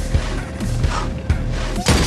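Action film score with deep, repeated low bass hits. Just before the end comes a sharp crack: a pistol shot striking the drone's camera housing.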